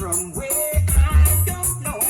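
Reggae music played loud, with a heavy pulsing bass line, a shaker-like high rhythm and a gliding melody line.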